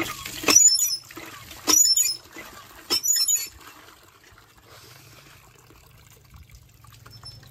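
Water splashing and pouring as raw prawns are washed, in three short bursts over the first three and a half seconds.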